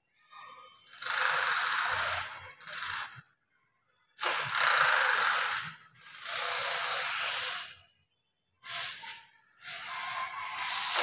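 Small DC motor of a homemade cardboard exhaust fan whirring and rattling in short runs of one to two seconds. It starts and stops abruptly about six times as its wires are connected and disconnected.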